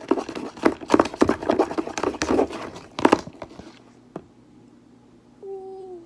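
Thickening borax-activated slime being stirred in a bowl, making rapid wet clicking and crackling for about three seconds, then going quiet apart from a single click about four seconds in. A short steady tone sounds near the end.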